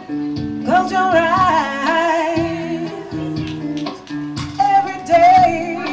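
Live song: plucked notes on a hollow-body electric guitar under a singing voice with vibrato. The voice comes in with one held phrase about a second in and a second phrase near the end.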